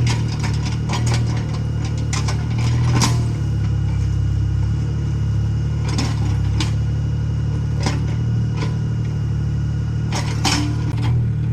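Excavator engine running steadily, with scattered clanks and knocks as the bucket works crushed stone.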